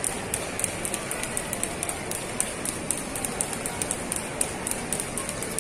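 Skipping ropes ticking on a hard floor in a quick, steady rhythm, with several ropes going at once, over the murmur of a crowd in a large echoing hall.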